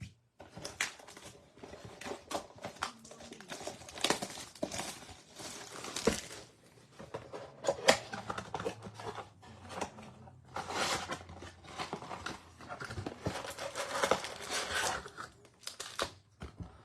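Plastic wrapping crinkling and tearing as a box of baseball cards is unwrapped and its foil packs are pulled out, with a few sharper clicks along the way.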